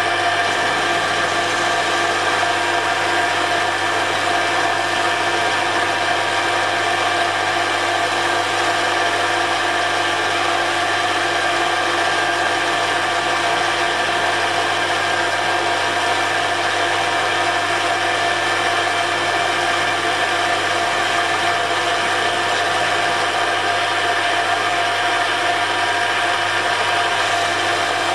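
Metal lathe running at steady speed with a constant geared-headstock whine while a carbide tool takes a light cut across the end of a steel drill chuck arbour, to get under a hardened skin that a drill would not cut.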